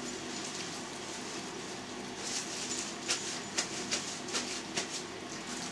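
Paper towel rustling and crinkling as it is pressed against a piece of raw pork neck to blot it dry. It is quiet at first, then from about two seconds in comes a run of short, irregular crackles.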